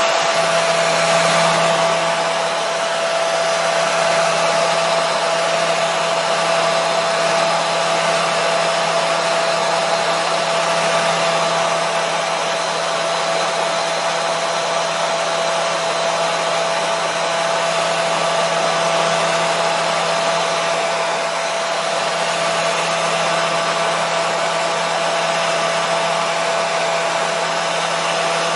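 Hair dryer running steadily: an even rushing of air with a constant motor whine.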